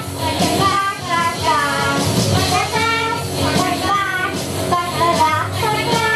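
Two young girls singing a song together over a backing music track.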